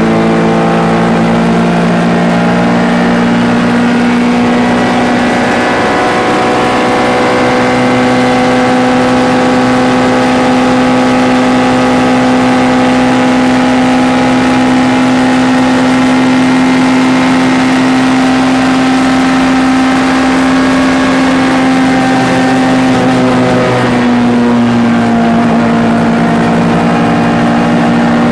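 MG ZR 105 race car's 1.4-litre four-cylinder engine running hard at high revs, its pitch climbing slowly as it is held flat out. About 24 s in the pitch drops to a lower note.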